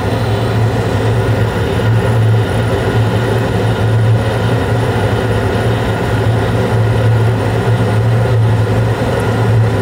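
Carrier Infinity 96 two-stage gas furnace running at high fire: inducer fan and four burner flames making a steady low hum over an even roar.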